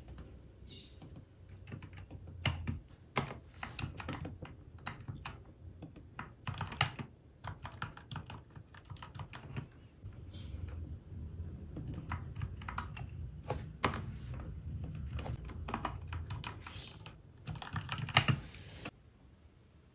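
Typing on a compact white mechanical keyboard: irregular clacking keystrokes, sometimes in quick runs, sometimes with short pauses.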